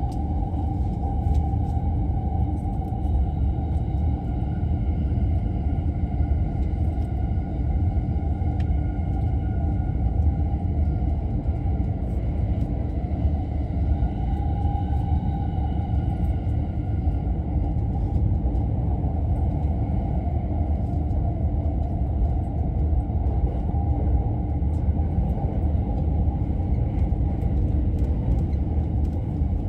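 Inside an electric commuter train's cabin while it runs: a steady low rumble of wheels on the rails, with a faint steady whine of several tones from the electric drive and occasional light clicks.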